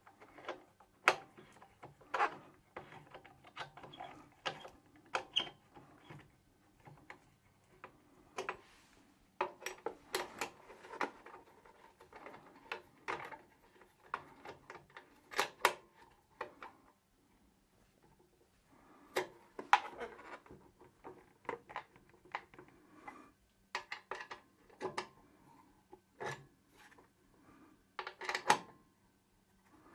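Irregular metallic clicks, clinks and knocks, with some rubbing, from hands and tools working the mounting fittings as an oil burner is fitted onto a boiler.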